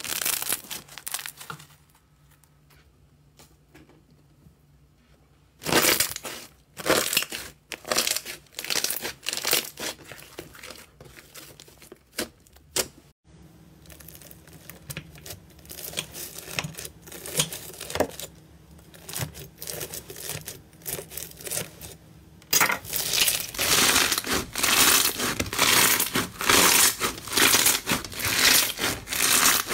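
Slime being handled, in three parts. First, blue slime is pressed through a metal wire grid, giving runs of crackles and pops after a quiet start. After a cut, pink crunchy bead slime is sliced with a knife and crackles softly. From about two-thirds of the way through, hands squeeze the crunchy slime, making dense, loud crackling.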